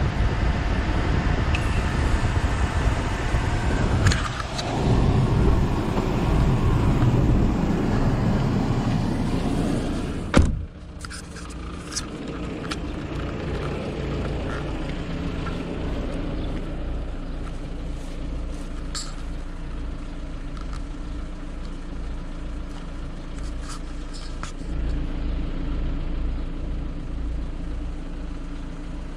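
Car engine running with the air-conditioning blower on its highest setting, loud and even from inside the cabin. About ten seconds in, a car door shuts with one loud thump. After that the idling engine is heard from outside the closed car, steady and muffled.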